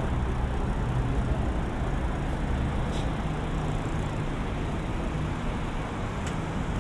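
Steady city road-traffic rumble, with a motor vehicle's engine running nearby, and two faint ticks about halfway through and near the end.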